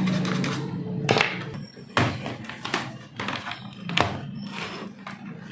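Background music fading out, then a few sharp taps and clicks of tools and small parts being handled on a laptop's plastic case during disassembly.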